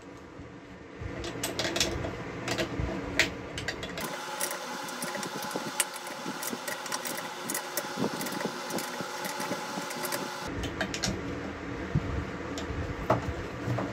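Socket wrench turning a nut down a threaded steel through-rod on a cast-iron water-pump motor housing: light metallic clicking and scraping, densest in the middle. The tightening is drawing a crack in the housing closed.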